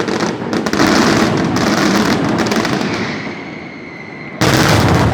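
Fireworks going off in a dense barrage of rapid bangs and crackling, which thins out about three seconds in under a steady high whistle. A sudden loud burst comes near the end.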